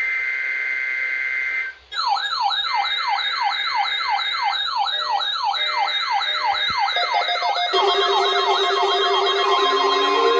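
Emergency Alert System data burst: the SAME header's pair of digital data tones. About two seconds in, an electronic siren tone begins, warbling rapidly up and down at about three and a half sweeps a second. Near the end, steady tones and slow gliding tones join over the warble.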